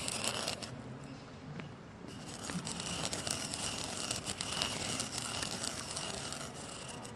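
Sesame seeds being ground in a suribachi (Japanese ridged grinding bowl) with a wooden pestle, close to a dummy-head microphone: a continuous gritty, crackling scrape. It eases off about a second in, then picks up again.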